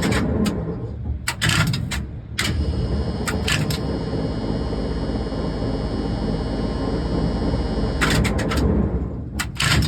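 KB-407 tower crane's hoist drive running with a steady electric hum, while the contactors in its control cabinet clack in and out in several short groups of clicks. This is the test run after the worn relay contacts, the cause of the missing top hoisting speed, were cleaned.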